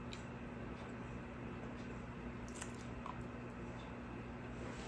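Faint chewing of soft, coconut-milk-soaked Fijian lolo steamed buns, with a light click about two and a half seconds in, over a steady low hum.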